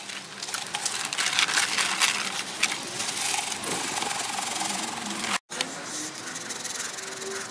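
Threshed seed and chaff pouring from a tarp into a plastic bucket: a dry rushing hiss with rustling of the tarp. It cuts off abruptly about five seconds in, and a quieter stretch follows.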